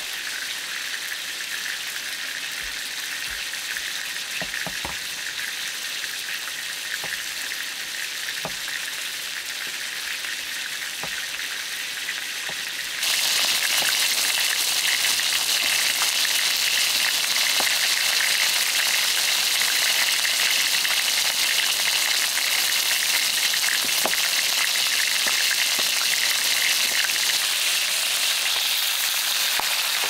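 Chicken drumsticks frying on a hot steel disc pan: a steady sizzling hiss that suddenly gets louder about thirteen seconds in. A few light knocks are heard in the first half.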